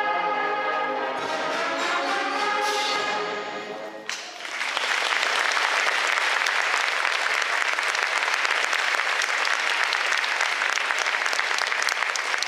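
A student concert band with brass plays its closing bars and cuts off sharply about four seconds in. The audience then applauds steadily.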